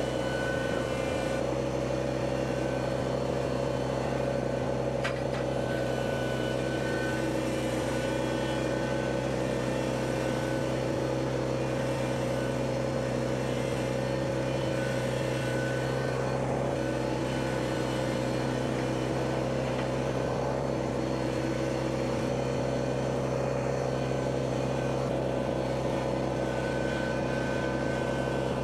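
Compact tractor's diesel engine running at a steady speed, an even drone that does not change.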